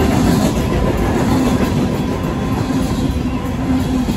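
Freight cars of a Union Pacific manifest train rolling past at close range: a steady rumble with wheels clattering over the rail, while the crossing's mechanical bell keeps ringing.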